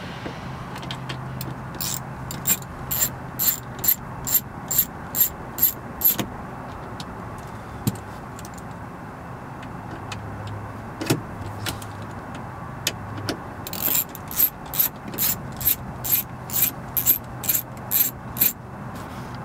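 Ratcheting screwdriver with a Torx T20 bit clicking evenly, about two or three clicks a second, as it backs out two screws. There is one run of clicks in the first few seconds and a second run near the end.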